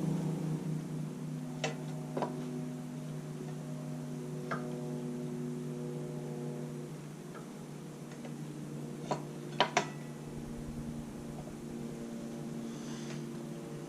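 A few sharp metallic clinks of hand tools and parts during removal of a motorcycle's front brake calipers and wheel, three louder ones close together about nine seconds in, over a steady low hum.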